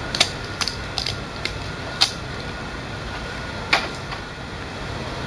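Protective tape being peeled off an HP 302 ink cartridge: a handful of short crackles and clicks from the plastic film and the handled cartridge, the loudest about two seconds in and again near four seconds.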